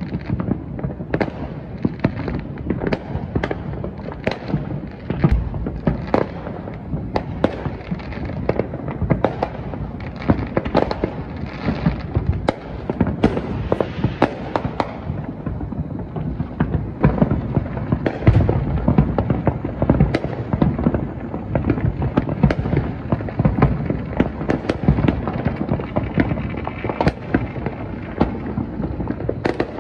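Fireworks going off all around: an unbroken run of overlapping pops, bangs and booms, several a second, with no pause.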